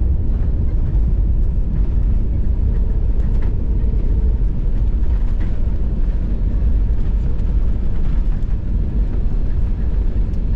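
Steady low rumble of an Airbus A321neo cabin while the airliner rolls along the ground after landing: engine hum mixed with the undercarriage rolling on the pavement.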